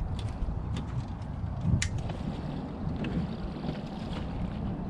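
Wind rumbling on the microphone out on an open boat, with a few sharp clicks and one louder knock a little under two seconds in.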